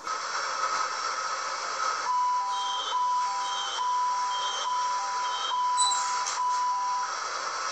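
Subway train door-closing warning beeps: an electronic two-tone beep repeated six times, a little under once a second, starting about two seconds in, over the steady running noise of the metro car interior.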